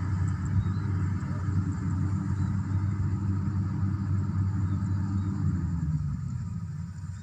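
Kubota combine harvester's engine running with a steady low drone, fading and dropping in level near the end.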